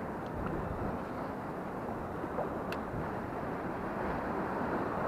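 Steady wind and water noise around a small open skiff drifting in choppy water, with a light tick about two and a half seconds in.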